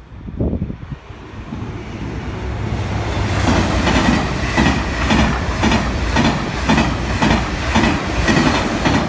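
TGV Duplex high-speed train passing at speed: a rush that grows louder over the first few seconds, then the wheels clattering in a regular rhythm of about three beats every two seconds.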